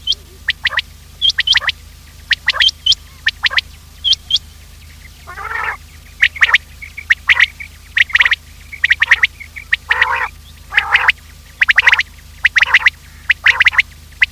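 Quail calling over and over in quick clusters of short, sharp notes, about one cluster a second, with two lower, harsher calls between them: a quail call recording used as a lure for trapping quail.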